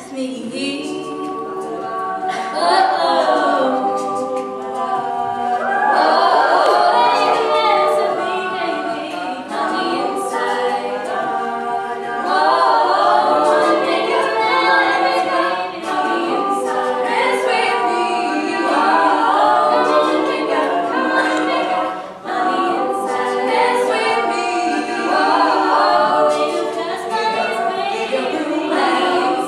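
All-female a cappella group singing in close harmony, a solo voice carrying the melody over the group's backing voices.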